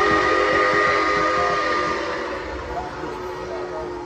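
Nickel Plate Road 765's steam locomotive whistle sounding one long, steady chord of several tones, loudest for the first two seconds, then easing off but still held.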